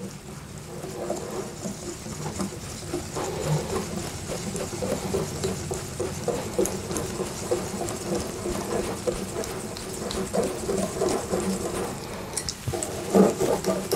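Wire balloon whisk beating a thick, wet egg-yolk cake batter in a glass bowl: rapid, uneven slapping strokes with light clicks of the wires against the glass, as the flour, yolks, water and oil are mixed until combined.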